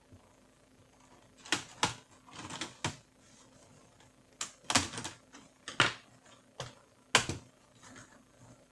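Plastic top case of a Toshiba Satellite A210 laptop being pried loose at its edges: a string of sharp, irregular clicks and snaps as its latches let go and the plastic flexes.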